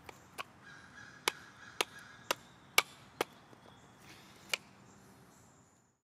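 A Sanrenmu 9052 slip-joint pocket knife whittling a stick: about eight short, sharp cuts into the wood at uneven intervals. The last cut falls about a second and a half before the end, and the sound then fades out.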